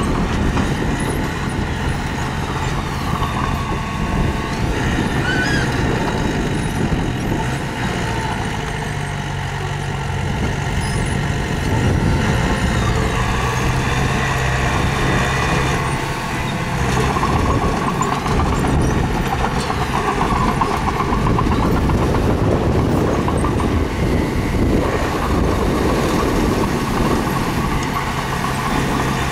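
Diesel engine of a mini bulldozer working, its note stepping up and down several times as it is throttled, over a continuous rough clatter of machinery.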